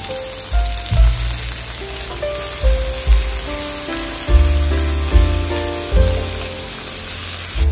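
Chopped water spinach sizzling in hot oil as it is stirred in a wok, a steady hiss under background music with a stepping melody and loud bass notes.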